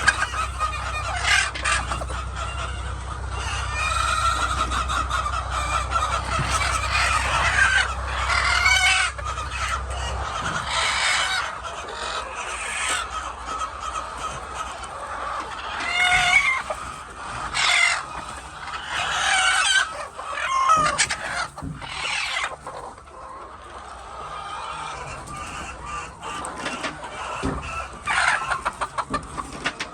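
A flock of chickens clucking and calling, with a rooster crowing among them. A steady low hum underneath stops about ten seconds in.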